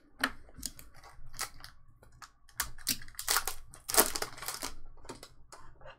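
Foil wrapper of a 2020-21 Upper Deck Extended Series hockey card pack crinkling and tearing as it is opened by hand, in a run of short crackles that is loudest a little past the middle.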